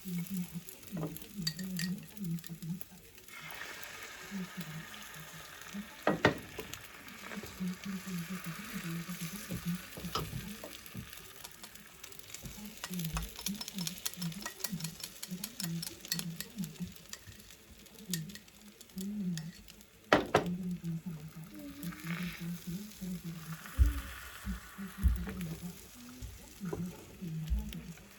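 Food sizzling in a frying pan while it is stirred, the sizzle swelling for long stretches, with a few sharp knocks of a utensil against the pan, the loudest about six seconds in and again around twenty seconds.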